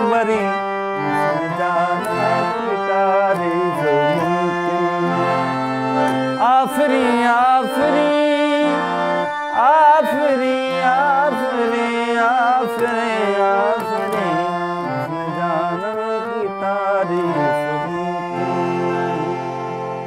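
Harmonium playing a qawwali melody, with held low notes under it and a voice gliding and wavering above in wordless runs. It settles into one steady held chord near the end.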